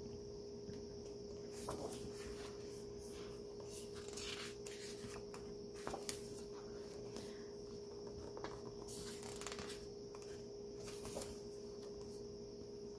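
Pages of a hardcover photo book being turned by hand: soft paper rustles and flips several times, over a faint steady hum.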